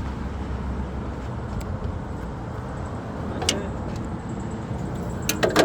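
Road traffic noise on a city street, a steady low rumble, with a sharp click about three and a half seconds in and a quick run of clicks near the end.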